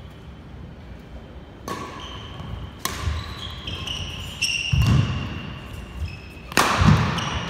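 Badminton rally: rackets smack the shuttlecock about four times, with heavy footfalls as players lunge on the wooden court and short high squeaks of sneakers on the floor.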